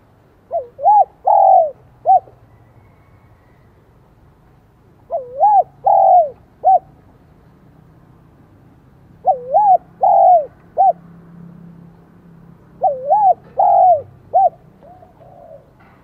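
Spotted dove cooing in the high-pitched 'son' voice: four phrases of about four notes each, one roughly every four seconds.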